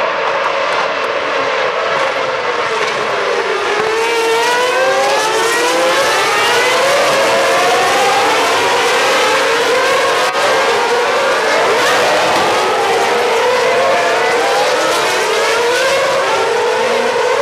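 A pack of V8 Formula One cars passing one after another, many engine notes overlapping and rising and falling as they rev up and down through the gears.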